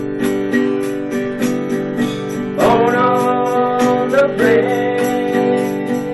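Acoustic guitar strummed in a steady rhythm as the lead-in to a gospel song. About two and a half seconds in, a held, sliding melody line comes in over the strumming.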